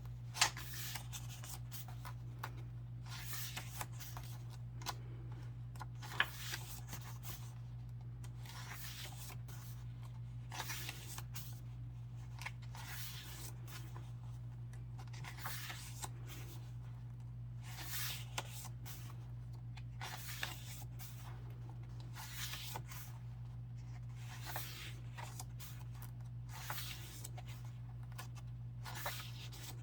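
Pages of an album photo book being turned one after another, each a brief papery swish about every two seconds, with a few light taps. A steady low hum runs underneath.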